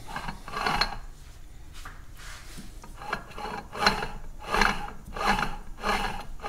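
Vortech V3 supercharger head unit's pulley being spun by hand in repeated flicks, each giving a short rasping whir as the gear drive and bearings turn over. The strokes come about every 0.7 s in the second half. The unit is being turned to check that it still spins freely after reassembly.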